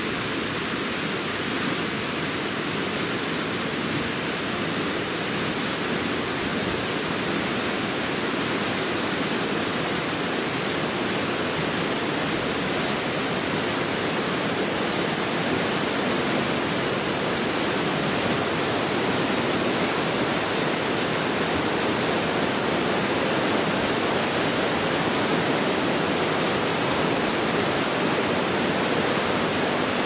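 Sea water rushing past a moving cruise ship's hull: a steady, even hiss with no separate wave breaks, growing slightly louder.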